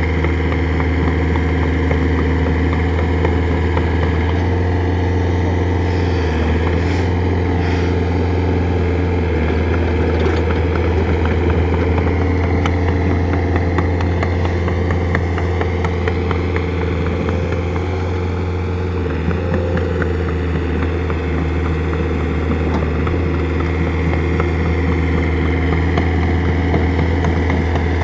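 Excavator's diesel engine running steadily at a constant speed, loudness dipping slightly about two-thirds of the way through.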